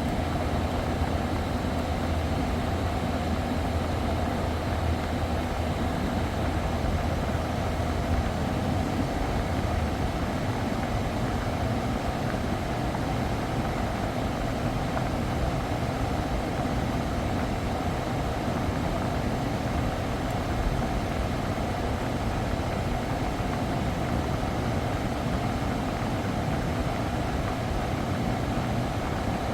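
Kia Carnival running at idle with its air conditioning on while the system is charged with refrigerant; a steady mechanical running sound, with a low hum that drops away about nine seconds in.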